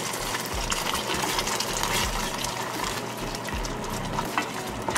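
Wooden spoon stirring thick barbecue sauce in a stainless steel pot on the stove, with a steady hiss underneath and a few light knocks and scrapes of the spoon.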